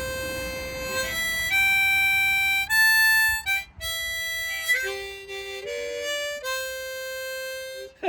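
Harmonica playing a slow melody of long held single notes, stepping up and down in pitch.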